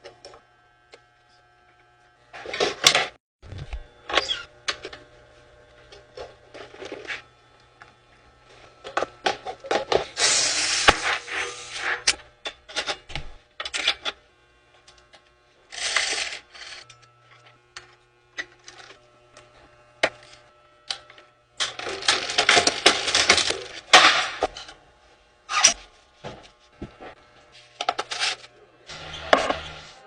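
Packaging being handled during a bike unboxing: irregular bursts of crinkling and rustling, some lasting a second or two, among many sharp clicks and knocks.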